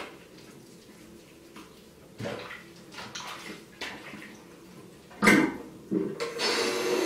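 Water splashing in a bathroom sink basin as a soapy kitten is handled, with a sharp knock just after five seconds; then the tap is turned on and water runs steadily into the sink from about six seconds in.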